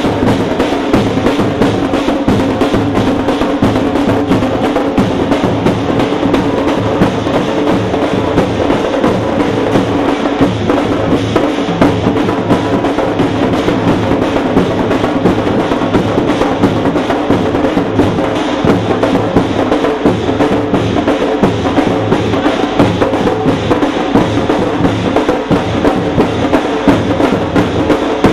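Loud, fast drumming that keeps going without a break: a dense, steady stream of sharp drum strokes.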